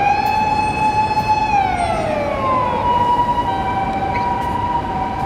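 Japanese emergency vehicle siren wailing: the pitch rises, holds high for about a second, then slides down, and about three seconds in gives way to steady high tones. City street traffic rumbles underneath.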